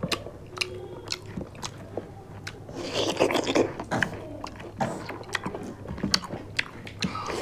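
Close-miked mouth sounds of people eating chicken and watermelon with their hands: wet chewing and lip-smacking with many sharp clicks, and a denser crunchy stretch about three seconds in.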